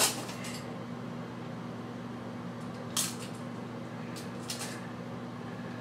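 Reacher grabber and shower curtain hooks clicking and clinking against a metal shower rod as a hook is put on: a sharp click at the start, another about three seconds in, then a couple of fainter ones, over a steady low hum.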